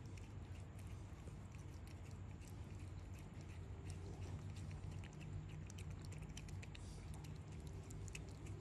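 Mother cat licking and chewing among her newborn kittens, faint irregular wet clicks, as when a queen eats the afterbirth.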